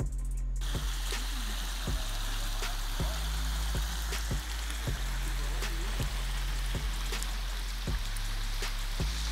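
Steady rushing of a flooded river, under a low rumble, with soft regular thumps about twice a second.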